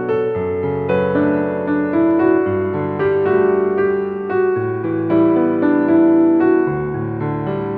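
Background music played on a keyboard instrument in a piano sound, with held chords under a melody whose notes change about every half second to second.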